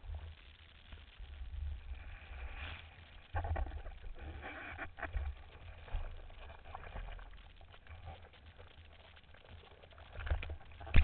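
Muffled rush of water and wind buffeting against a camera mounted on a surfboard's nose as the board planes over whitewater, with several louder surges of splashing spread through.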